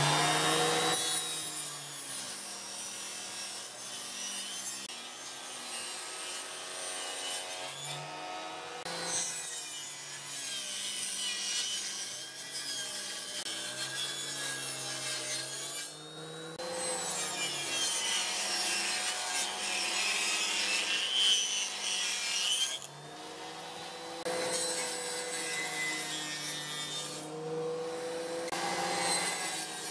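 Table saw ripping wooden boards along its fence: the motor's running tone sags and recovers as the blade bites into each board, over a steady hiss of cutting. The sound breaks off abruptly and resumes several times.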